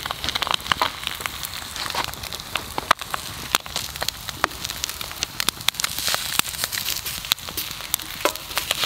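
Wood campfire crackling, with irregular sharp snaps over a steady hiss.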